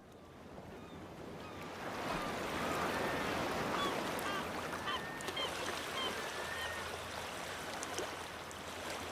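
Outdoor ambience: a steady rushing noise that builds over the first two seconds, with many short bird calls over it.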